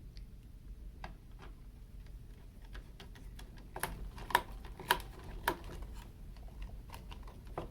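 Sharp clicks and light knocks of a string trimmer's gear housing being handled and fitted back together, with four louder clicks about half a second apart midway.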